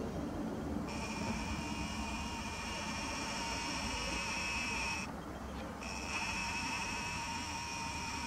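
Camera lens zoom motor of a Nikon Coolpix P900 whining as the lens zooms in, starting about a second in, stopping briefly about five seconds in, then running again. Under it sits a steady low rumble of background noise.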